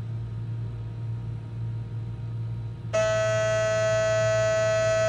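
Panasonic ES-LV9E shaver in its automatic cleaning station during the clean cycle. A low hum runs at first, then about three seconds in a loud, steady buzz of the shaver vibrating starts abruptly and holds.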